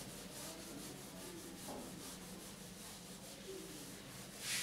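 Faint rubbing of a duster wiped across a whiteboard in quick repeated strokes, erasing marker writing, with a brief louder hiss near the end.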